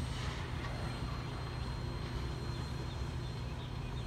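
Freight train's diesel locomotives making a steady low rumble as a double-stack intermodal container train rolls along the line.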